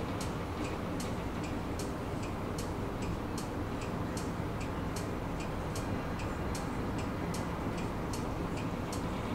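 Regular ticking, a louder and a softer click alternating about two and a half times a second, heard inside a tram standing at a stop, over the steady low hum of the tram.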